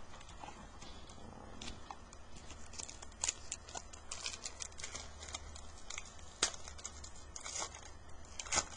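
Trading cards being handled: a run of light rustles and flicks as the cards are shuffled through, with a few sharper snaps in the second half.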